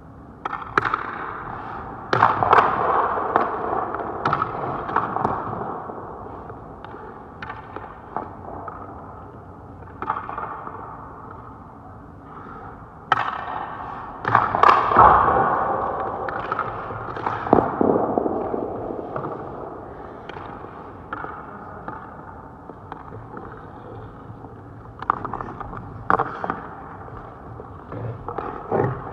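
Ice hockey pucks being shot at a goaltender: sharp cracks of stick on puck and puck off pads and boards, echoing in the rink, with swells of skate blades scraping the ice.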